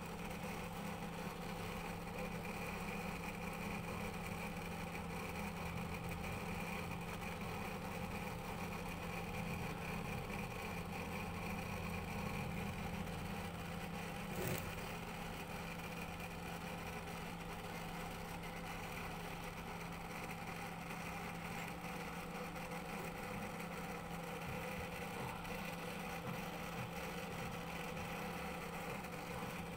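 Engine idling steadily, with a single short click about halfway through.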